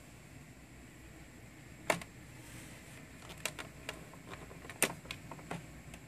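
Upright vacuum cleaner's automatic cord rewind drawing its power cord in on its own, with no one pressing the rewind pedal; the cord clicks and taps against the housing in irregular knocks, the loudest about two seconds in and just before five seconds, over a low steady hum.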